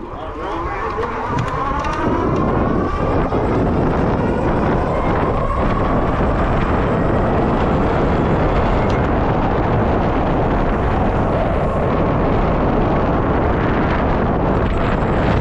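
Heavy wind noise on the microphone as an electric bike speeds downhill, with the motor's whine rising in pitch over the first few seconds as it accelerates, then holding steady.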